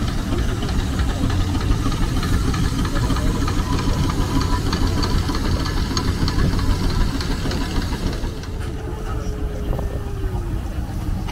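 Steam traction engine working under load as it hauls a loaded log trailer, with steam hiss over its steady exhaust beat. About eight seconds in the sound drops to a quieter, steady running.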